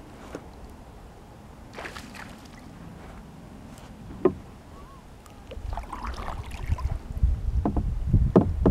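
Knocks and bumps on a kayak's hull with water movement around the boat. A few sharp knocks come in the first half, the loudest about four seconds in, then a louder stretch of irregular low thudding and rumbling.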